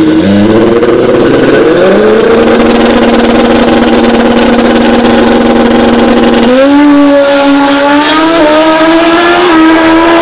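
Pro Street drag motorcycle engine revving up at the start line and held at a steady high rpm for a few seconds. About six and a half seconds in it launches, and the engine pitch jumps and climbs in steps as it accelerates hard away down the track.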